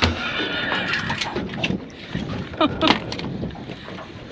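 Horse whinnying, a wavering high neigh fading over the first second and a couple of short snorting calls about three seconds in, laid in as a sound-effect gag on a fish called a horse.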